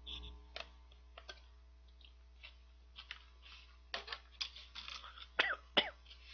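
Clear plastic sandwich wrapper crinkling and crackling as it is handled, in scattered clicks that get busier in the second half.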